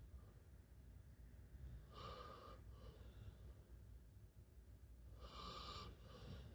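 A sleeping pet snoring: two faint snores about three seconds apart, each a short breath followed by a softer, shorter one.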